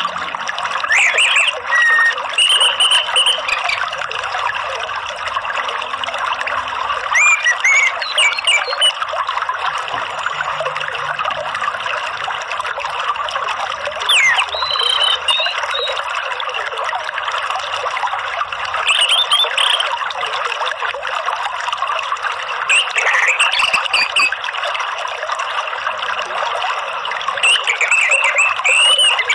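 Steady rush of flowing water, with short bird chirps breaking in every few seconds.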